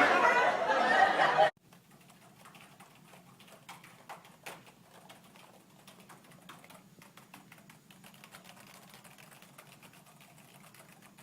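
Voices and laughter that cut off abruptly about a second and a half in, followed by faint, scattered clicking and tapping.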